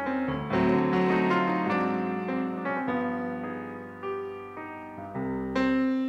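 Grand piano playing a slow jazz ballad: chords struck about every second or so and left to ring out.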